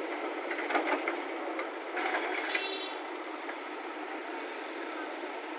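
Backhoe loader's diesel engine running steadily while its bucket shoves a large pipe along the trench, with a few knocks about a second in and again about two seconds in.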